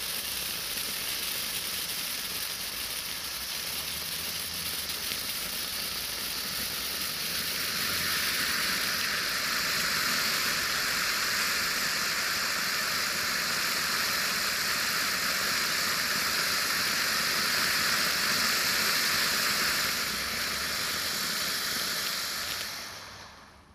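Weco Big Apple firework fountain spraying sparks with a steady hiss. About seven seconds in the hiss grows louder and brighter as the fountain changes effect, then it fades and stops near the end as the fountain burns out.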